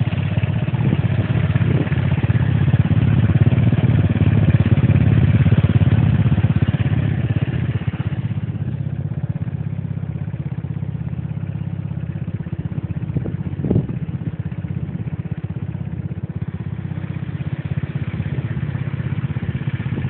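Small scooter engine idling steadily, louder for the first eight seconds and quieter after that. One short knock sounds a little past the middle.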